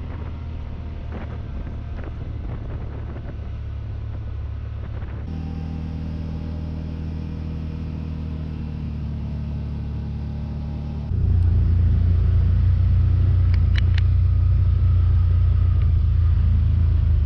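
Side-by-side and ATV engines running steadily with a low rumble. The sound shifts abruptly twice and becomes clearly louder about two-thirds of the way through.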